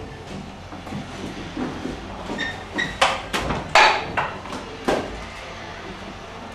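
Knocks and clatter from work on a ceiling as a worker climbs an aluminium stepladder. Two short squeaks come just before the middle, then four sharp knocks in about two seconds.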